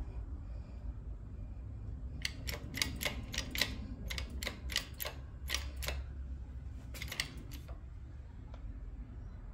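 A 20-ton shop press being worked to push a brass ring out of a plastic throttle-body adapter: a run of sharp, irregular clicks starting about two seconds in and stopping about two seconds before the end, over a low steady hum.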